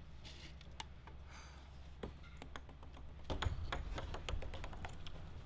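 Red plastic cups being set down and shuffled on a wooden table for a beer pong re-rack: a scatter of light clicks and taps, thickest about three seconds in, with a low rumble underneath from then on.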